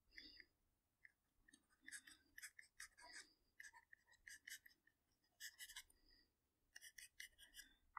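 Faint scratching and tapping of a stylus writing on a tablet: a string of short, soft strokes.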